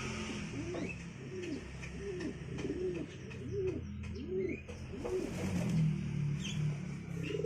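Domestic pigeon cooing: a run of about seven low, rising-and-falling coos, roughly two a second, with a few faint high chirps from other birds.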